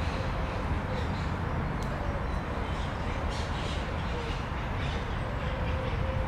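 Outdoor city-park ambience: a steady low rumble of background traffic with birds chirping now and then and a faint wavering hum.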